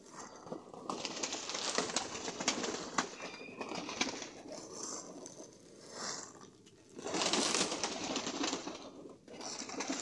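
A flock of domestic pigeons crowding together on the ground, cooing, with noisy flurries of wings and scuffling broken by sharp taps. The flurries come in two longer stretches, about a second in and again about seven seconds in, with a shorter one at the end.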